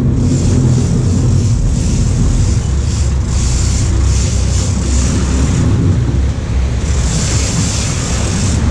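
Sportfishing boat's engines running with a steady low rumble, under wind buffeting the microphone and water rushing at the stern, the rush growing louder near the end as white water churns up at the transom.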